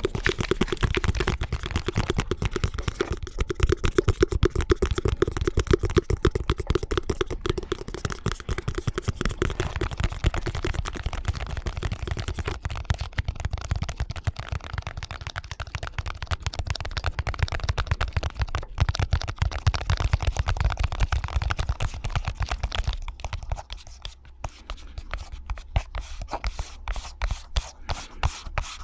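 Rapid, overlapping tapping and scratching with fingernails and fingertips on objects, several tapping tracks layered at once. For the first nine seconds or so the taps carry a hollow ring, and the sound thins out near the end.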